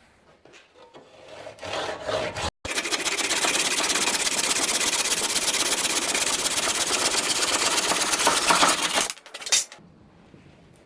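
A power tool working wood. It starts abruptly after a few seconds of scattered handling noises, runs steadily at a loud, even level for about six seconds, then stops suddenly, with one more short burst just after.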